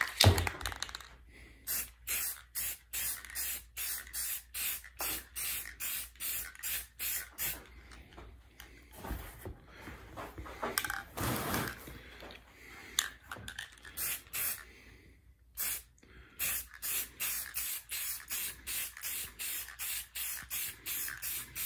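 Aerosol spray-paint can sprayed in many short spritzes, about two or three a second, with one longer spray about eleven seconds in and a few brief pauses: a light first coat of paint going on.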